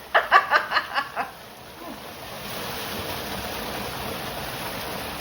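A short burst of laughter in the first second, then spring water running steadily into a temple bathing pool, an even rushing hiss.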